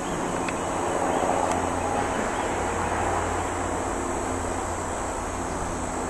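Steady high-pitched insect buzzing over a low, even rumble of background noise.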